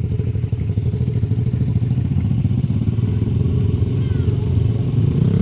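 Small dirt bike engine running steadily at low throttle close by, its pitch rising a little near the end as it picks up revs.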